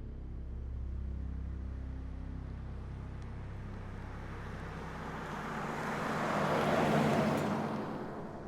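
A vehicle passing by: a rushing sound that builds slowly, peaks about seven seconds in, then fades away, over a steady low drone.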